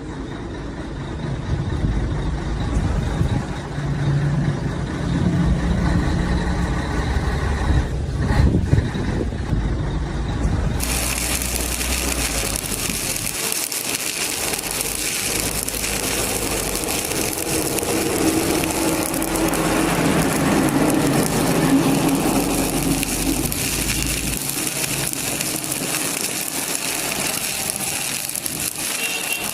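Stick (shielded metal arc) welding arc crackling steadily on steel plate, over a low machine rumble. About eleven seconds in the crackle turns sharper and brighter, and the rumble stops a few seconds before the end.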